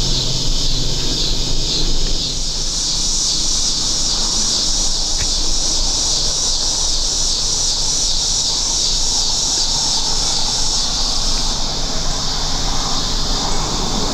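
Insects droning in a steady, high-pitched chorus with a pulsing rhythm, over a low rumble of outdoor noise; the chorus eases off a little near the end.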